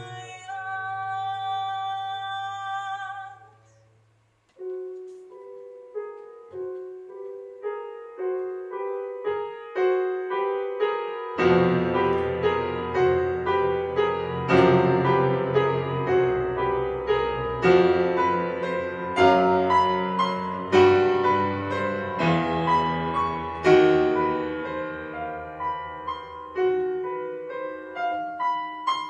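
A woman's voice holds a sung note with vibrato over a bowed double bass drone; both stop about four seconds in. After a short pause a grand piano plays solo, sparse at first and then fuller with deep bass notes from about eleven seconds in.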